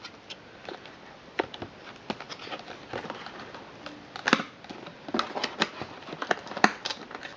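Small cardboard box handled and opened by hand, its flap pulled open and the inner tray slid out, giving irregular light clicks, taps and scrapes; the loudest tap comes a little over four seconds in.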